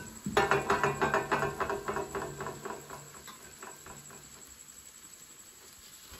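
Spoon stirring food in a cooking pot: a quick run of rapid scraping clicks that fades out after about three seconds.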